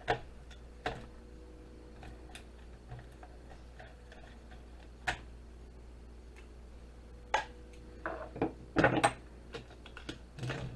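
Sharp clicks and knocks of old computer parts being handled and pried apart: a few single ones, then a quick cluster near the end, over a steady low hum.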